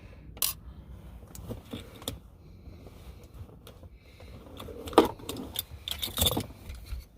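Scattered clicks and light metallic rattles of small hand tools and parts being handled, with the sharpest clack about five seconds in and a short cluster of clatter around six seconds.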